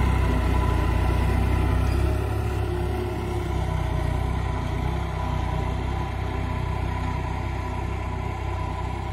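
New Holland 3630 tractor's diesel engine running steadily under load while pulling a tine cultivator through field soil. It gets a little quieter about two seconds in.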